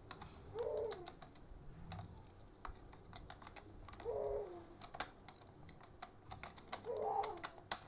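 Irregular small clicks and taps of tools and parts being handled on an opened laptop during reassembly. Three short falling calls sound in the background.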